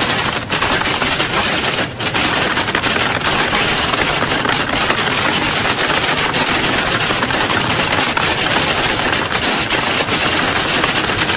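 Many computer keyboards being typed on at once, as in an exam hall: a dense, continuous clatter of fast key clicks.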